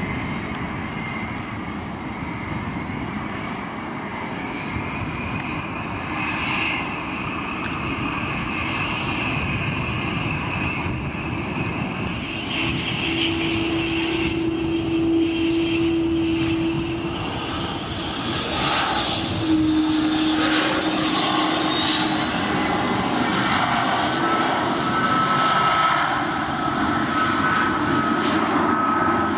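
Turbofan jet engines of taxiing aircraft, a small business jet and then a Luftwaffe Airbus A310-300, running with a steady rumble and whine that gradually grows louder. Steady whining tones come and go in the second half, with a higher whine from about 24 seconds in.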